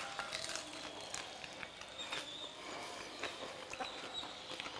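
Faint, scattered crunches and mouth clicks of two people biting into and chewing corn-masa sopes.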